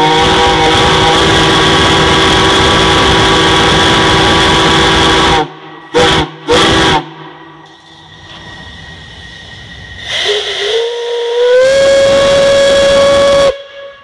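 Large Lunkenheimer steam whistles blowing together in a loud chord of several steady tones, cut off about five seconds in, then two short blasts. After a few seconds of steam hissing, one whistle comes on again, its pitch rising as it comes up to full tone, and holds until it cuts off near the end.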